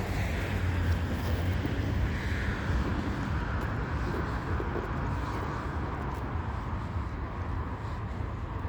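City street traffic: passing cars with a steady low road rumble and tyre hiss, easing off slightly toward the end.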